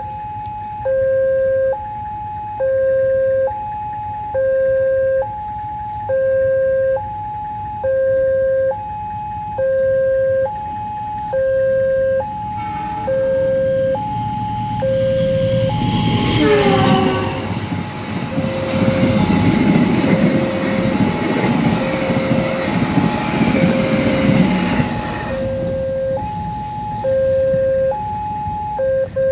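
Railway level-crossing warning alarm sounding from the loudspeaker on the crossing post, a low and a high electronic tone alternating steadily. About halfway through, a train passes over the crossing for roughly ten seconds and is the loudest sound; its noise stops fairly suddenly while the alarm keeps sounding.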